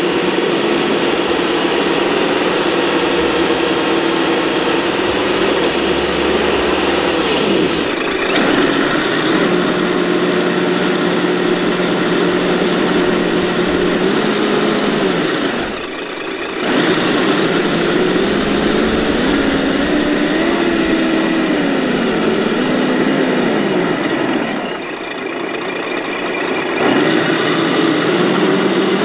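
Scale RC 8x8 military trucks running through gravel with a truck-engine-like drone that rises and falls in pitch as they pull. The sound jumps abruptly about 8 and 16 seconds in and dips briefly near the end.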